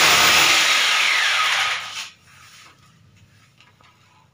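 Corded electric drill boring a hole into the wall for a wall plug. The drilling stops about two seconds in, followed by faint knocks of the drill being handled.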